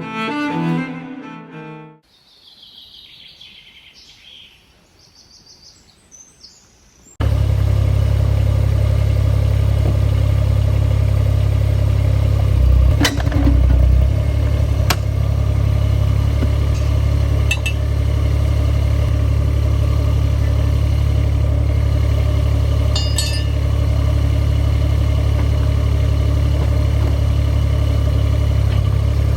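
Cello music ends, and a few seconds of faint birdsong follow. About seven seconds in, a loud, steady low engine rumble starts and runs on, with a few sharp clicks over it.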